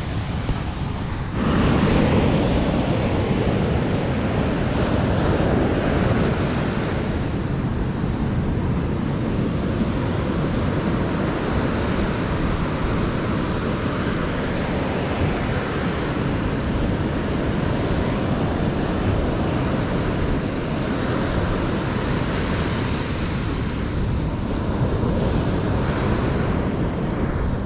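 Pacific surf breaking and washing up a sandy beach, with wind buffeting the microphone. It is a steady roar of noise that turns louder about a second and a half in.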